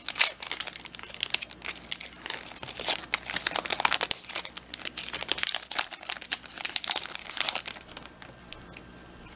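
Foil wrapper of a Pokémon card booster pack being torn open and crinkled, a dense crackling that dies down about a second before the end.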